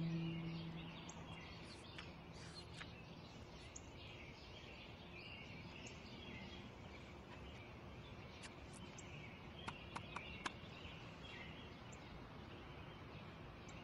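Faint outdoor ambience of small birds chirping over a steady hiss. A low held musical note dies away in the first second or two, and a few short, sharp sounds come about ten seconds in.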